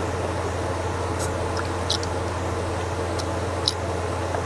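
Steady low background hum with a few faint, short clicks from eating: mouth smacks and a wooden spoon stirring soup in a steel pot.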